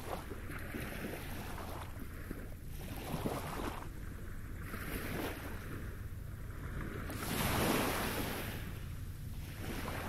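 Small sea waves breaking and washing up a pebble beach, a surge every second or two, the loudest a little past three-quarters through. A steady low rumble runs underneath.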